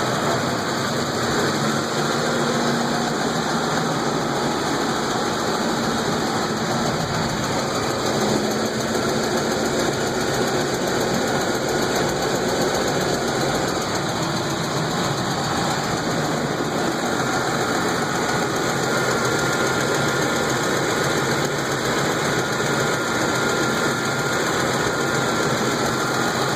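2006 Ford F-150 engine running steadily in park, with the tick noise the owner is trying to track down.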